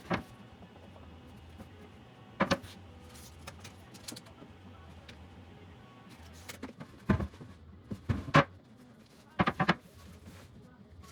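Wooden cabinet door panels being handled and fitted against a cabinet: scattered knocks and clunks, some in quick pairs, over a low steady hum.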